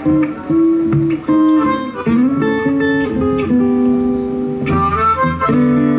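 Blues harmonica holding and bending notes over two acoustic guitars, played live.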